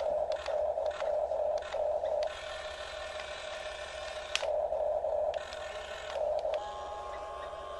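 Huina 1350 RC excavator's small electric gear motors whining in short spurts that start and stop as the boom and bucket move. About six and a half seconds in, the sound turns into a steadier, slightly higher whine.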